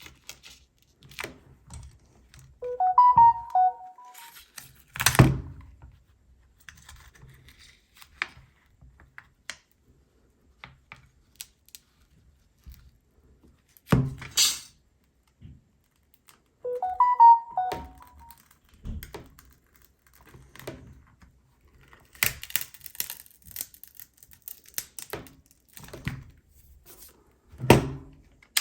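Hand tools and a phone being handled on a work surface: scattered clicks, taps and scraping, with a few louder thunks as parts are set down and pried. Twice, a short electronic chime of a few notes sounds.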